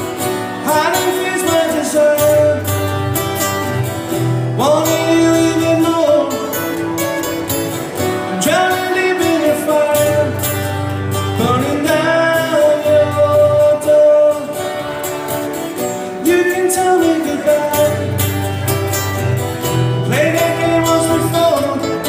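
Live acoustic song: an acoustic guitar strummed in a steady rhythm, with a voice singing long notes, each phrase swooping up into a held note every few seconds.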